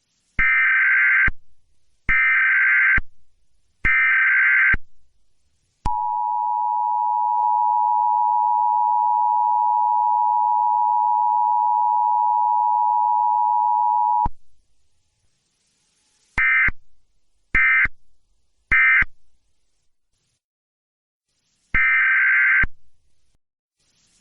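Emergency Alert System tones. Three short screeching bursts of digital header data come first, then the two-tone attention signal holds steady for about eight seconds and cuts off. Three quick end-of-message bursts follow, and near the end another header burst starts.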